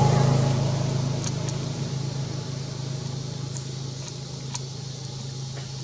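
A steady, low motor engine drone that fades gradually, with a few faint ticks.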